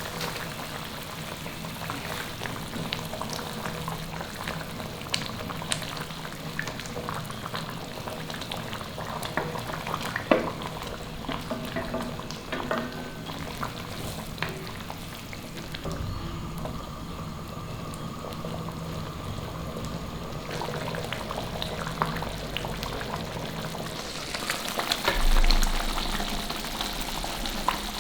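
Brinjal gravy sizzling and crackling in a pan as it cooks, with scattered sharp clicks, swelling louder near the end.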